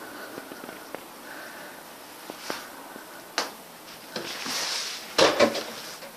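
A cat playing with a toy on a string: scattered light taps and rustles, with a louder scuffle about five seconds in.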